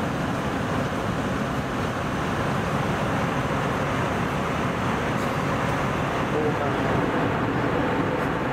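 Airbus A320 passenger cabin in flight: the steady rush of engine and airflow noise, constant throughout.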